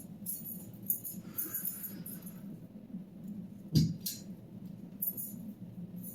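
Crossbow fired once, a little past halfway: a single sharp snap of the released string, followed a moment later by a lighter, higher crack.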